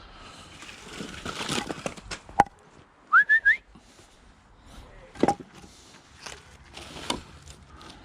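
Split hardwood firewood being handled and stacked: scraping and rustling, then sharp wooden knocks, three of them standing out. About three seconds in comes a quick run of three short rising whistled notes.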